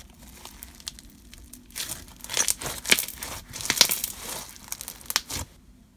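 Bingsu bead slime being squeezed and kneaded by hand, giving off irregular crunchy crackles and pops as the beads are pressed. The crackling is densest in the middle and fades out near the end.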